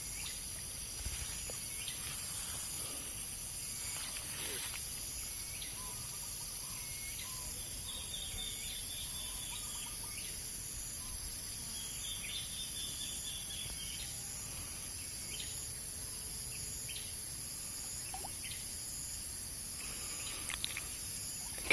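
Outdoor ambience of a steady, high insect drone, with two short runs of quick chirping notes, about a third and about halfway through.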